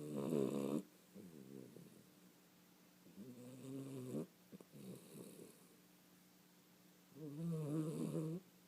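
A 16-week-old puppy snoring in its sleep: pitched, nasal snores with each breath, coming in pairs of a louder snore and a softer one, the louder snores at the start and again about seven seconds in.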